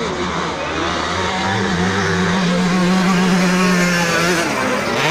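Several 85cc two-stroke motocross bikes racing, their engine notes rising and falling over one another. One holds a steady note for a couple of seconds, and another revs sharply up near the end.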